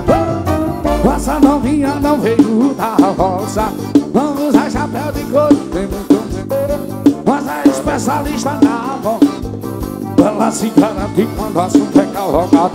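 Live forró band playing an instrumental passage: a quick melody line with bending notes over a steady dance beat.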